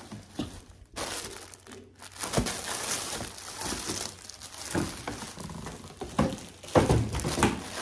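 Plastic packaging bags crinkling and rustling as a spin mop's mop heads are pulled out of a cardboard box, with a few sharp knocks and a louder clatter near the end.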